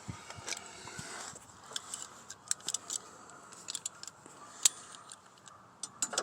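Irregular light metallic clicks and clinks as a pin is worked out of a riding mower deck's sway bar linkage, the sharpest click about four and a half seconds in.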